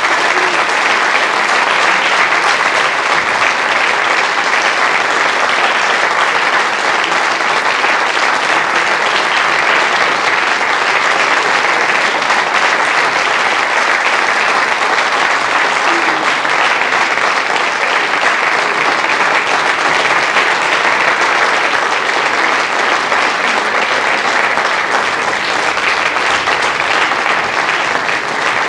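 Theatre audience applauding steadily at the curtain call: dense, sustained clapping.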